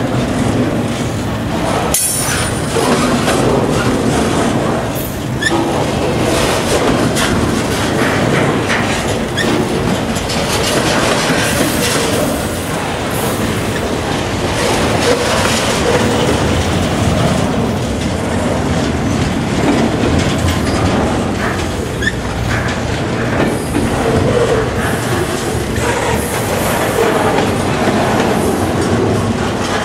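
CSX double-stack intermodal freight train passing slowly close by: a steady rumble of steel wheels on the rails, with intermittent clacks and knocks as the well cars roll over the rail joints.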